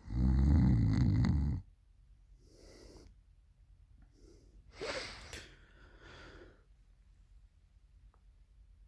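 A woman snoring in her sleep: one loud snore lasting about a second and a half near the start, then softer breaths about three, five and six seconds in.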